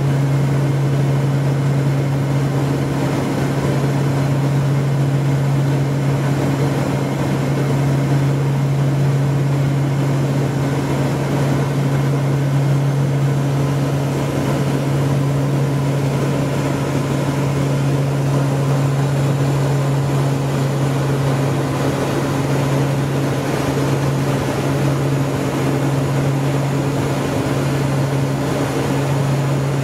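Engines and propellers of a Let L-410 UVP-E20 twin turboprop running steadily in flight, heard inside the cockpit: an even low drone with a hiss of engine and air noise over it.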